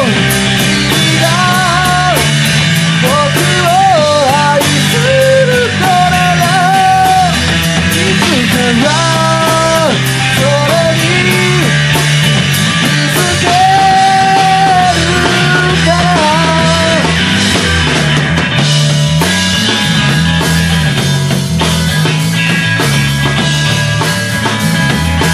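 Loud rock song played by a full band, with distorted electric guitars, bass and drums. A sung or lead melody runs over it and drops out about two-thirds of the way through.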